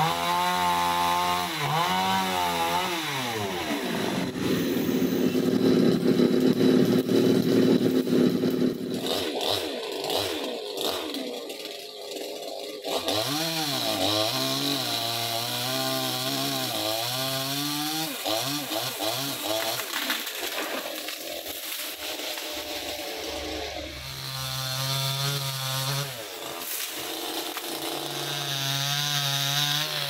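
Petrol chainsaw's two-stroke engine revving up and down, then running loud at full throttle for about five seconds. It then drops back to a steady idle with short blips of the throttle.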